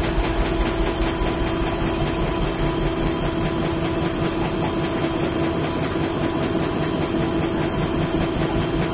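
Washing machine in its spin cycle: a steady motor hum over a low rumble, the machine shaking hard as the drum spins.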